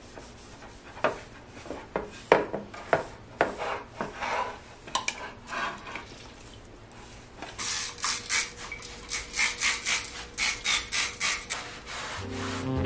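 Hand rubbing and scraping wet clay slurry out of a plastic basin, in scattered strokes, then from about halfway a run of quick, even rubbing strokes, about two a second.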